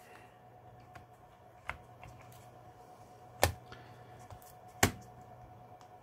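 Lenovo ThinkPad T440's internal battery pack being set back into the laptop's plastic chassis and pressed home: three sharp clicks about a second and a half apart, the last two loudest.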